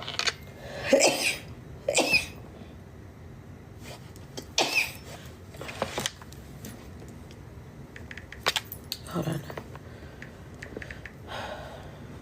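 A woman sneezing over and over in a sneezing fit: three loud sneezes in the first five seconds, then a few fainter ones.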